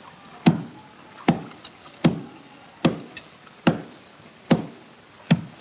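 Wooden washing paddle beating wet laundry on concrete: seven even, sharp blows about one every 0.8 seconds.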